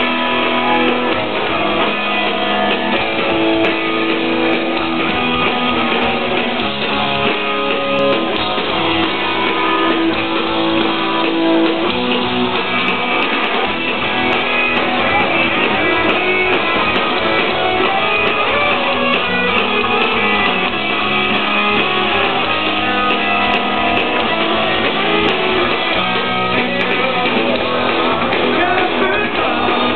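Live punk rock band playing loudly: electric guitars, bass and drums.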